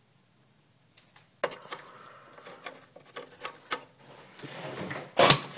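A small reciprocating refrigerator compressor being worked loose and lifted out of a mini fridge's base: irregular metal scraping, knocks and rattles, starting after a single click about a second in and getting louder near the end.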